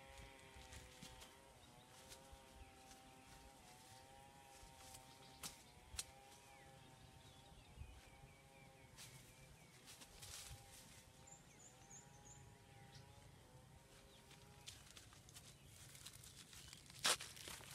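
Faint outdoor ambience: a distant hum with a slowly wavering pitch that fades out about three-quarters through, over scattered soft ticks and rustles. Bare footsteps on dry ground near the end, with one sharp, loud step close by.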